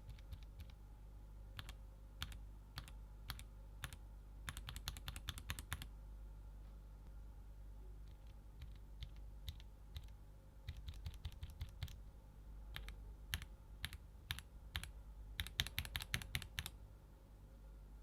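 Keystrokes on a mechanical keyboard fitted with Gateron Cap V2 linear switches: single presses and quick runs of typing, the switches changing from Milky Yellow to Golden Yellow partway through after a short pause.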